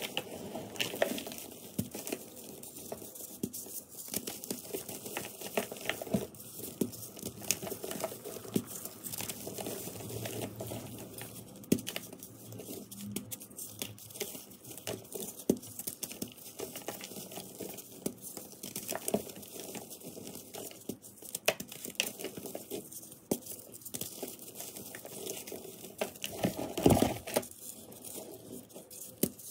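Chunks of dusty reformed gym chalk crushed and crumbled by hand, with a continual crunching crackle as pieces break apart into loose powder. There is a louder crunch near the end.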